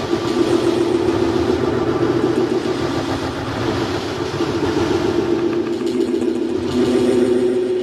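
Live experimental electronic music: a dense, steady drone with a strong low-mid band under a noisy hiss, the hiss growing brighter near the end.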